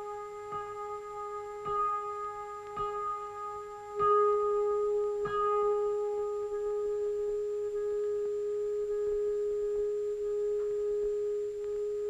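Soundtrack music: a single held tone, like a drone or bowl, with soft bell-like notes struck over it about once a second in the first five seconds. It gets louder about four seconds in.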